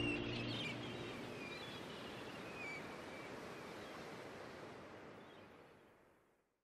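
The last low note of the acoustic-guitar background music dies away, leaving a faint outdoor-like ambience with a few short high chirps, which fades out to silence about five and a half seconds in.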